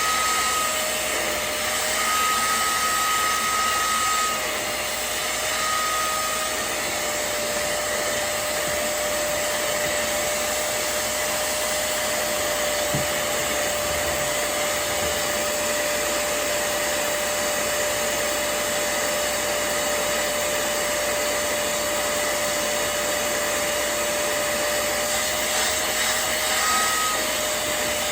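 Hoover CleanSlate portable spot cleaner running, its suction motor giving a steady whine over a rushing hiss. A higher tone cuts in and out a few times near the start and again near the end.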